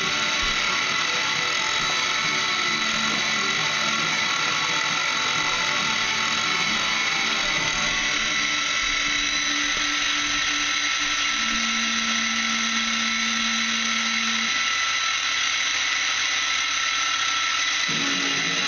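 Small milling machine running steadily, its motor and spindle giving a continuous whir with a high whine.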